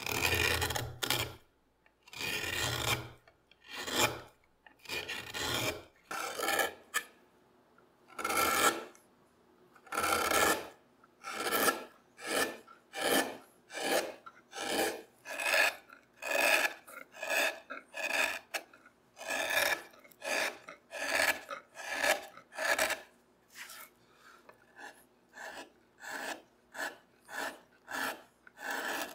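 Hand carving gouge cutting the walnut seat stroke by stroke, each cut a short scraping rasp through the wood that lifts a curled shaving. About one cut a second, the first few longer with a low thud, the cuts becoming shorter and quicker near the end.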